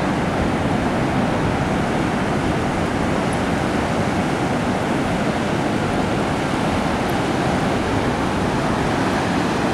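Pacific Ocean surf breaking and washing up the beach, a steady rush of white water with no distinct crashes.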